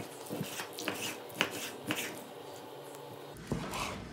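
Kitchen knife cutting raw chicken breast into chunks on a wooden cutting board: irregular soft taps of the blade meeting the board, with the rub of the meat being sliced and moved, and a slightly heavier knock near the end.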